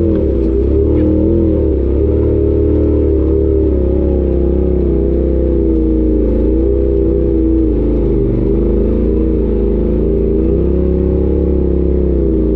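Side-by-side UTV engine running steadily, its pitch wavering gently up and down with the throttle.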